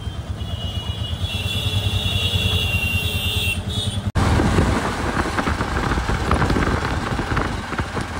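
Road traffic and a vehicle's engine on the move, a steady low rumble with a thin high steady tone over the first few seconds. About four seconds in the sound changes abruptly to a louder, noisier rush of traffic.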